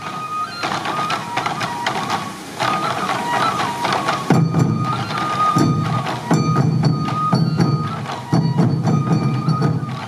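Sansa odori music: massed sansa taiko drums beaten in a steady rhythm, with a bamboo flute playing a melody of held notes over them.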